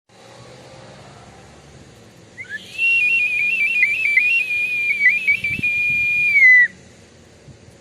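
Filimonovo clay toy whistle blown in one long, high note starting about two and a half seconds in. The note warbles with quick flicks of pitch, then holds steady and slides down as it stops.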